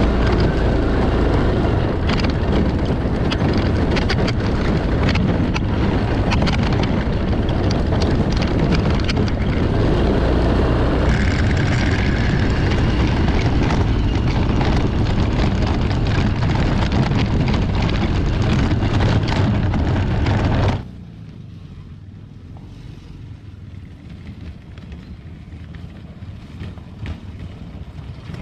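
Water-cooled Kuba Alterra 350 4x4 ATV riding over a rough dirt track, heard up close: engine running under wind on the microphone, with many short knocks and rattles from the bumpy ride. About three-quarters of the way in the sound drops suddenly to the same ATV heard from a distance as it approaches, slowly growing louder toward the end.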